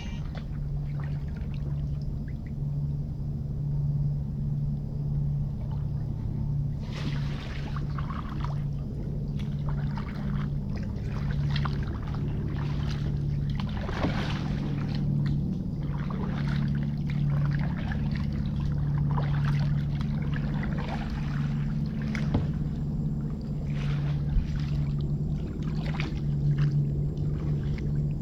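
Kayak paddle blades dipping and splashing into calm water, stroke after stroke, with water trickling off the blades; the splashes come through clearly from about seven seconds in. A steady low hum runs underneath.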